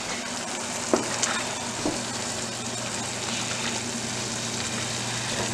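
A pot of thick chili crackling as it cooks on a gas stove while a wooden spoon stirs through it, with three light knocks of the spoon against the metal pot between one and two seconds in.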